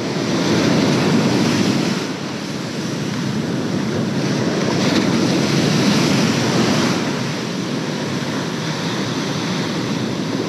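Ocean surf breaking and washing up a beach, swelling twice, with wind buffeting the microphone.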